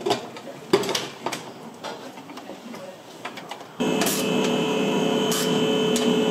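Light clicks and knocks of tools and parts being handled, then about four seconds in a small motor starts and runs steadily with a hum.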